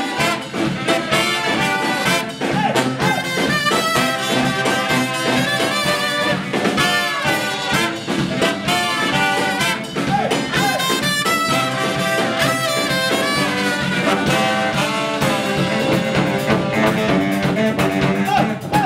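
A live brass band playing: trumpet, trombone, two saxophones (one a baritone) and sousaphone, backed by a drum kit, in a jazzy horn tune that keeps going without a break.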